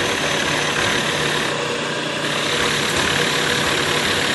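Milling machine plunging a cutter about an inch across into a metal bracket, the spindle turning under 500 rpm: a steady motor hum under a continuous cutting hiss.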